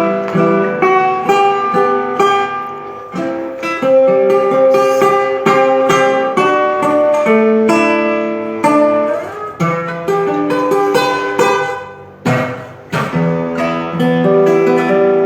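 Acoustic guitar playing slow chords, the notes picked and lightly strummed, with a brief break and a strum about twelve seconds in.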